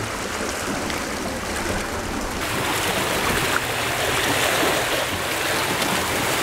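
Small sea waves washing against the rocks of a breakwater: a steady rushing wash that grows louder about two and a half seconds in.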